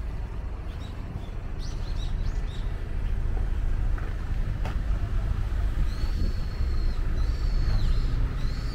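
Steady rumble of car traffic on a city street, with a bird chirping in short high calls about two seconds in and a run of repeated high, arching calls in the last few seconds.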